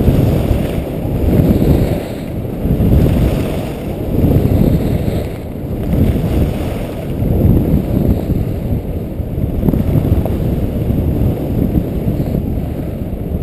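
Wind rushing over the microphone of a skier carving down a groomed piste, with the rush of the skis on the snow swelling and easing with each turn, roughly every second and a half.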